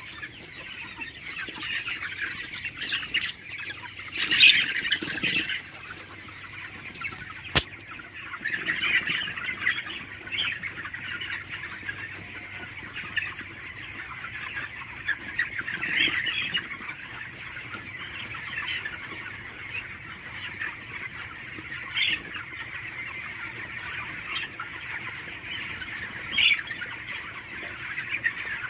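A flock of desi chickens clucking and calling on and on, with louder squawks standing out every few seconds and one sharp click.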